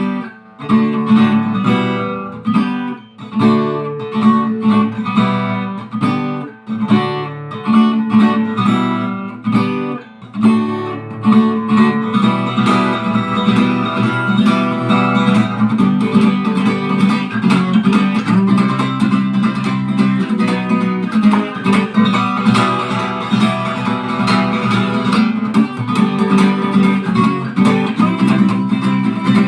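Acoustic guitar playing a strummed instrumental intro: separate chords with short breaks for about the first ten seconds, then steady, continuous strumming.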